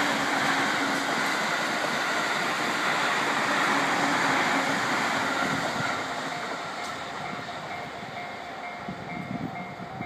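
Long electric multiple-unit commuter train running past at speed with a steady rumble and hiss of wheels on rail, fading away over the last few seconds as the tail of the train moves off.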